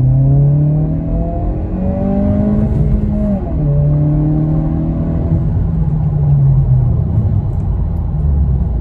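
A 2022 Honda Civic Si's turbocharged 1.5-litre four-cylinder on its stock tune, accelerating hard with the engine note rising. About three and a half seconds in, the pitch breaks and drops with an upshift, then it pulls again before easing off near the end.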